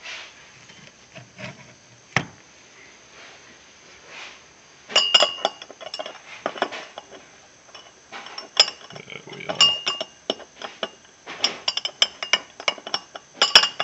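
Metal tongs clinking against the inside of a Pyrex glass beaker while trying to grip a coin, with a single click about two seconds in and then many quick, ringing clinks from about five seconds on.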